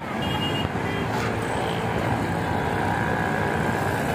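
Steady outdoor din with a traffic-like rumble, broken only by a couple of faint, short high whistle-like tones in the first second.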